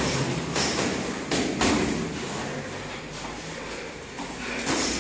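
Sparring blows with boxing gloves and feet on foam mats: a few sharp thuds and slaps, two close together about one and a half seconds in and another near the end, over the echoing hubbub of a gym hall.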